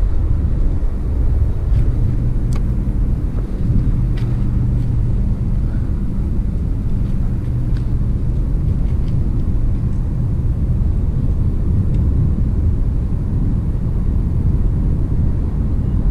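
Steady low rumble of engine noise, loud throughout, with a few faint ticks in the first half.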